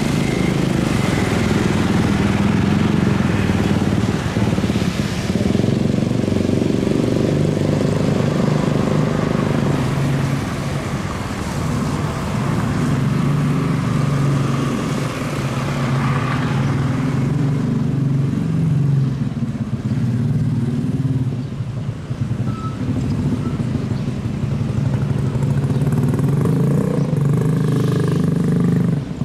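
Airbus A350's Rolls-Royce Trent XWB jet engines during the landing roll on a wet runway: a loud, steady rumble mixed with the hiss of tyre spray, easing a little partway through and swelling again near the end.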